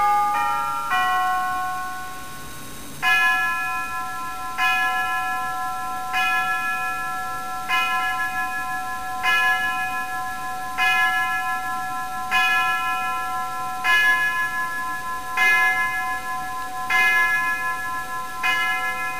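Kit-built Churchill grandfather clock chiming the hour at twelve: the last notes of the chime melody, then the hour strike, one bell tone repeated about every one and a half seconds, eleven strokes, each ringing on until the next.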